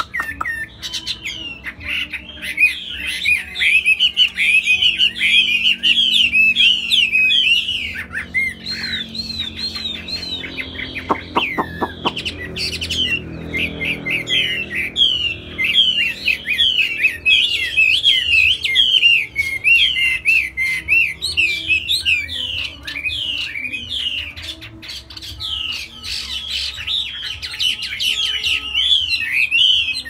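Chinese hwamei singing a fast, near-continuous song of varied rising and falling whistled phrases. There is a brief break near the middle, with a short run of clicks.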